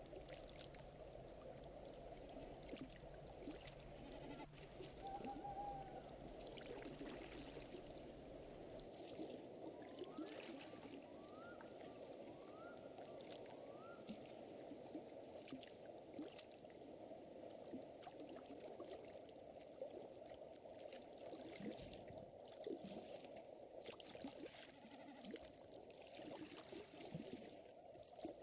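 Faint layered lakeside ambience: water trickling and lapping, with a fire crackling in scattered sharp snaps. A short held call comes about five seconds in, and four quick rising chirps come about ten to fourteen seconds in.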